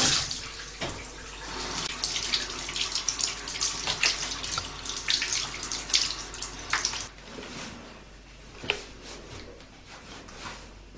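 A bathroom sink tap running, shut off right at the start, then irregular splashing and dripping as a cloth is washed and wrung by hand in the sink, growing sparser after about seven seconds.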